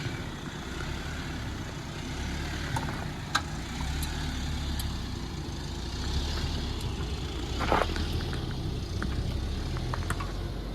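Jeep driving over a rough dirt road: a steady low rumble of engine and tyres, with scattered sharp knocks and rattles, one louder about three seconds in and another near eight seconds.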